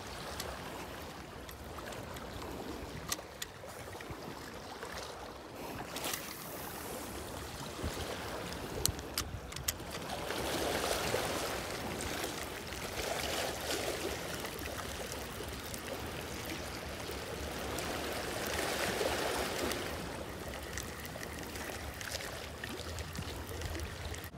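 Small waves washing against the rocks at the water's edge: a steady wash that swells several times in the second half. A few brief clicks sound in the first half.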